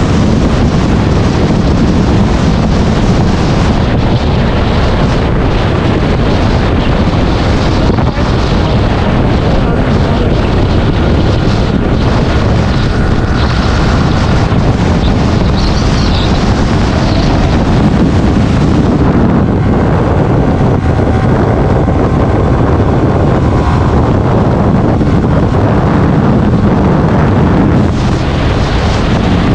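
Heavy wind rush buffeting the rider's microphone on a moving motorcycle, with engine and road noise underneath, steady throughout.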